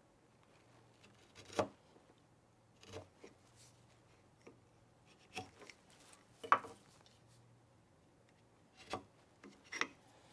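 Wood chisel paring the rounded ends of a router-cut mortise square, in about eight short cuts with pauses between, the loudest about six and a half seconds in.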